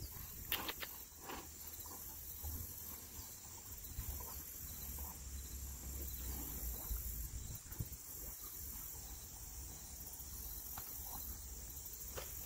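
A horse chewing a peppermint treat cake, with a few faint crunches in the first second and a half and quieter ones after, over a steady high chirring of insects.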